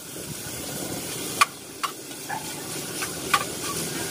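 Fatty meat sautéing in oil in a metal saucepan, sizzling steadily as it is stirred; the stirring utensil clicks sharply against the pot a few times.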